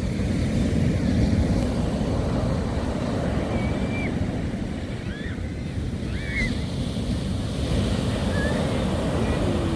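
Winter sea surf washing onto the beach in a steady rushing wash, with wind rumbling on the microphone. A few faint short chirps sound high above it at scattered moments.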